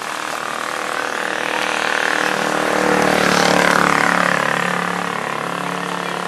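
A motor vehicle's engine passing by: it grows louder to a peak a little past halfway, its pitch drops as it goes by, then it fades.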